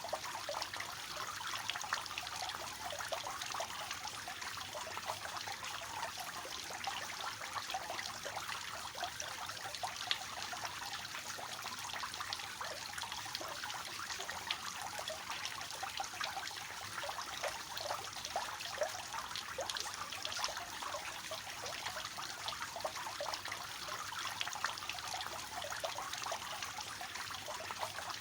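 Water falling down a three-tier cascading fountain, a steady light splashing and trickling made of many small splashes, with little low rumble.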